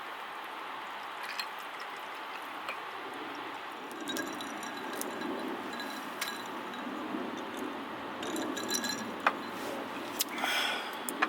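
A few light clinks and taps, some ringing briefly like glass or metal tableware, over a steady background hiss.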